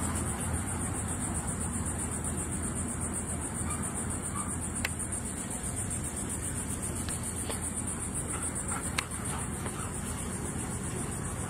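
Insects trilling steadily outdoors in a high, fast-pulsing chorus over a low background rumble, with two sharp clicks about five and nine seconds in.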